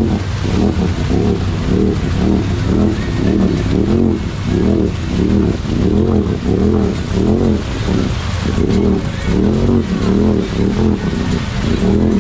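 Side-by-side UTV engine revving up and down about twice a second as the throttle is pumped, its paddle tires spinning and slinging mud while it churns in a deep mud hole.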